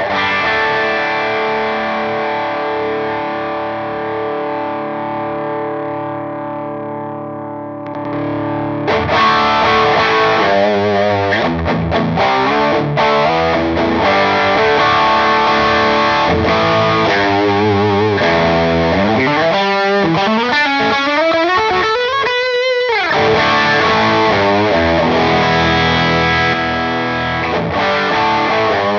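Electric guitar, a Yamaha Pacifica, played through a Gokko Pazuzu Hardcore Overdrive pedal. A distorted chord rings and slowly fades for about eight seconds, then distorted riffing follows, with string bends and wide vibrato about two-thirds of the way through. The player hears the pedal's tone as like compression and gate.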